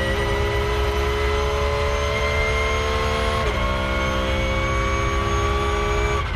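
Porsche 911 GT3 R racing car's 4.0-litre flat-six accelerating hard, heard from inside the cockpit. The revs climb slowly in a high gear, with a quick upshift about halfway through, and the sound briefly dips right at the end.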